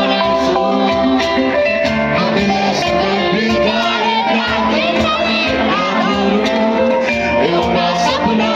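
Band music with a singer over guitar and a steady beat.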